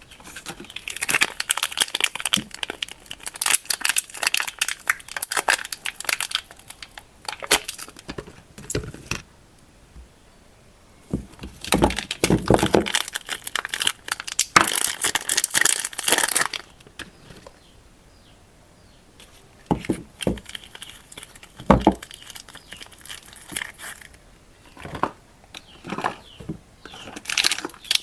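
Soap packaging being unwrapped by hand: wrapper crinkling and tearing in bursts of a few seconds, with brief pauses between them.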